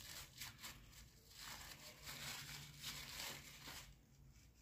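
Faint rustling and crinkling of a white wrapper being picked at and pulled off a small glass LED lens by hand. The sound comes as a string of short scratchy bursts and dies down about four seconds in.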